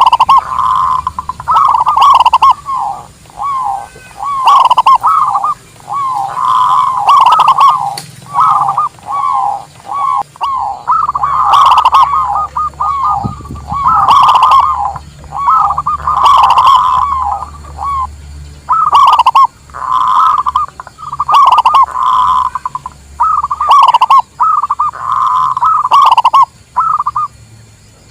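Zebra doves (perkutut) cooing: loud, quick phrases of rolling, staccato coos, each about a second long, repeated almost without pause.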